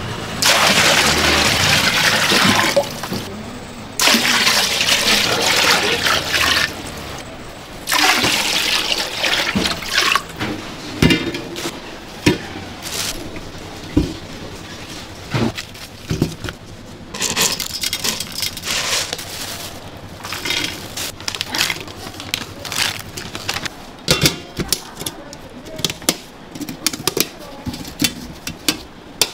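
Water running and pouring in several rushes of a few seconds each, then many short knocks and clatters, as of kitchen utensils and dishes being handled.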